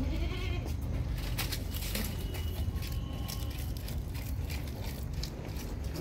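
Goat bleating faintly over a steady low rumble.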